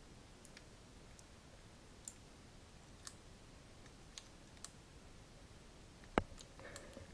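Scattered computer mouse clicks and a keyboard key press, sharp and faint over a quiet room hiss, with one louder click about six seconds in.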